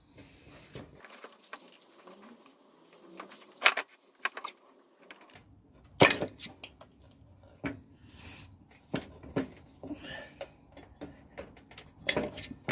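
Scattered clicks, scrapes and knocks of a screwdriver prising the rubber slider-pin guides out of a brake caliper on a wooden workbench, the loudest knocks about four, six and twelve seconds in.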